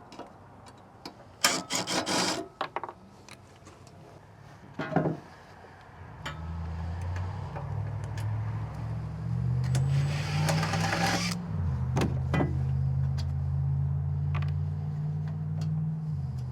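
Hand tools and parts scraping and clicking against sheet metal as an RV furnace is taken apart. About six seconds in, a steady low hum begins and shifts between a few pitches, with a stretch of rasping a few seconds later.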